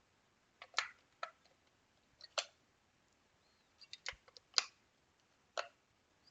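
Sharp plastic clicks and knocks of batteries being fitted into the Sega Game Gear's battery compartments and the covers snapped shut, coming singly at irregular intervals with a quick run of clicks about four seconds in.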